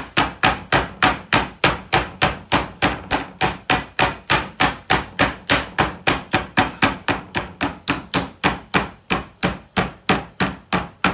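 Metal meat hammer pounding a chicken breast flat through cling film on a wooden chopping board: a steady run of blows at about three to four a second.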